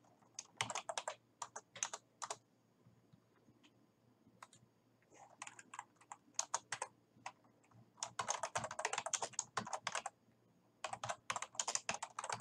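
Typing on a computer keyboard: runs of quick keystrokes with pauses of one to three seconds between them, the densest run about eight to ten seconds in.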